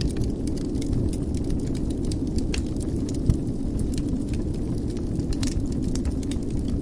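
Fire crackling in a fireplace: a steady low rumble with frequent small snaps and one louder pop about halfway through.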